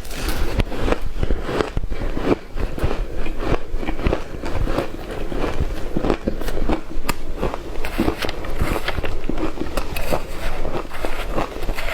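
Shaved ice crunched and chewed close to the microphone: a dense, irregular run of crisp crunches and scrapes with no pause.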